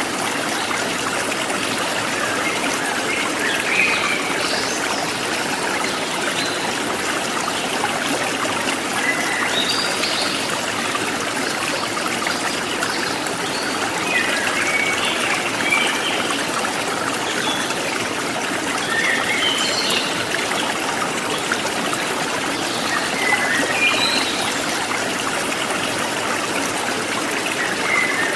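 Flowing water trickling steadily, with brief high chirps every few seconds.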